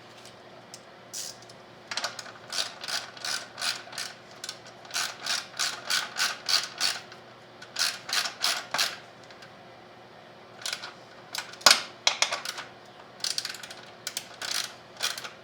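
Hand ratchet wrench clicking in runs of quick strokes, about three a second, as a bolt is turned, with one louder sharp clack about two-thirds of the way through.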